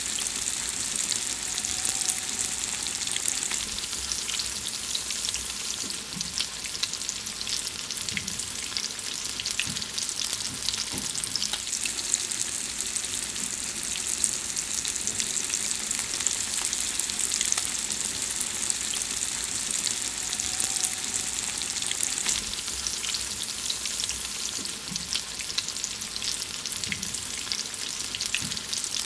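Food frying: a steady sizzle with many small crackles and pops.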